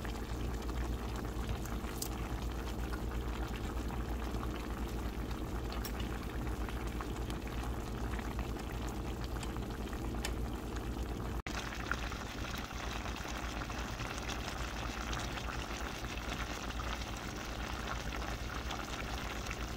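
Pompano fish stewing in a pan of tomato, onion and green onion sauce, the sauce bubbling steadily with small pops. The sound drops out for an instant just past halfway.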